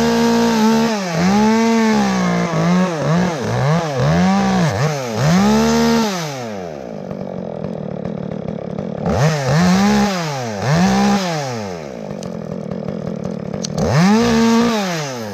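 Chainsaw revving in repeated short throttle bursts, each rising and falling, with lower idling stretches between them, while cutting wood.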